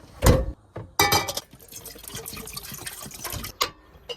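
A thump, then liquid being poured with splashing and dripping, among clicks and clatter of cookware while breakfast is made.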